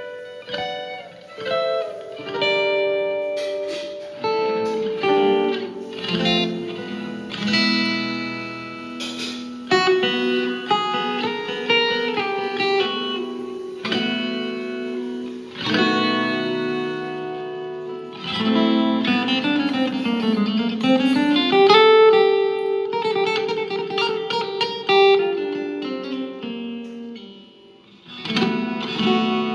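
Tanglewood DBT SFCE electro-acoustic guitar played through a Marshall MG15 amp: picked single-note lines and arpeggiated chords. About two-thirds of the way through, a quick run of notes steps down in pitch and back up. The playing thins out briefly near the end.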